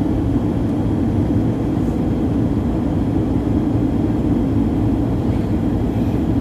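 Steady cabin noise inside a Boeing 737-900 in flight: the rumble of its CFM56 engines and airflow, strongest in a low, even band with no breaks.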